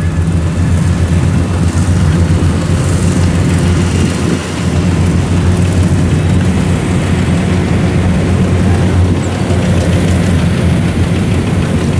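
Small farm cart's open-mounted diesel engine running steadily as it hauls a full load of rice sacks across the field.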